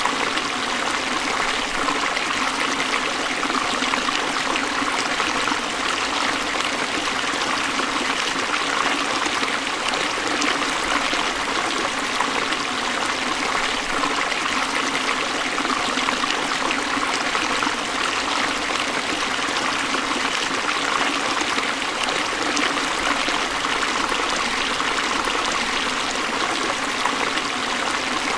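Forest stream flowing, a steady, unbroken trickle and splash of running water.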